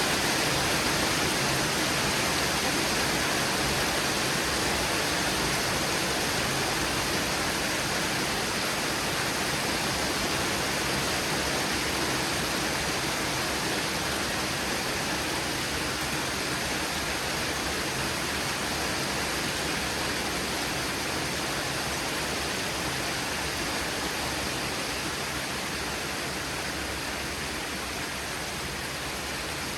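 Heavy rain pouring steadily in a thunderstorm, a dense even hiss that eases slightly toward the end.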